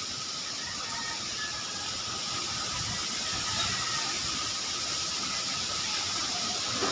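Typhoon wind and heavy rain making a steady rushing hiss, with a faint steady whistle underneath.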